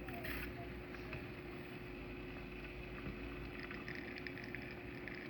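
La Pavoni lever espresso machine pulling a double shot of espresso: a steady low hum with a boiling simmer. There is a brief hiss just after the start, and faint crackling from about three and a half seconds in.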